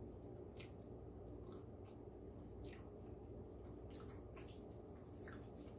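Faint, scattered wet clicks and squishes of a person chewing beef tripe, over a low steady hum.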